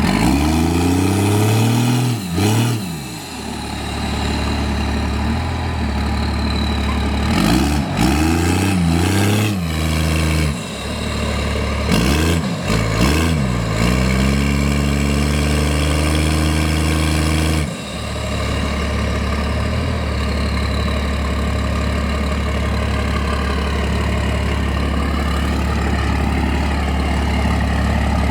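First-generation Cummins 5.9-litre inline-six turbo diesel in a Dodge Ram revving hard several times, the pitch climbing and falling as the truck pushes into deep floodwater, then dropping suddenly at about 18 seconds to a steady low idle.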